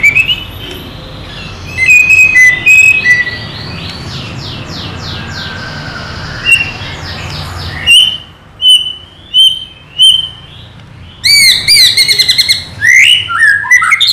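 White-rumped shama (murai batu) singing a loud, varied song of whistles and fast trills. A few short repeated whistles come in the middle, and near the end there are quick rising notes.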